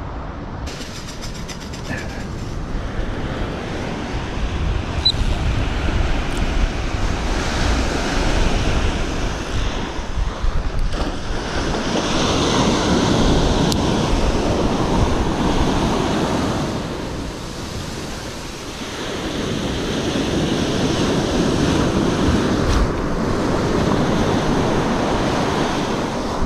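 Surf breaking and washing up a sandy beach, swelling and easing every several seconds, with wind rumbling on the microphone.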